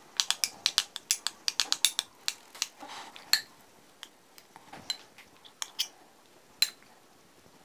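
Metal spoon clinking against a small porcelain bowl as sour cream and paprika are stirred: a quick run of light clicks for the first couple of seconds, then a few scattered taps and scrapes as the sour cream is spooned out.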